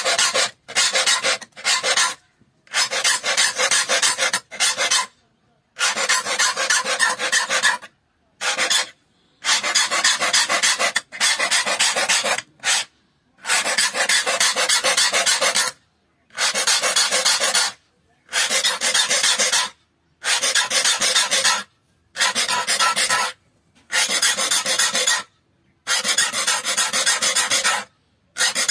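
Metal file rasping across the steel teeth of a hand saw, sharpening them: repeated stretches of filing about a second and a half to two seconds long, with short breaks between.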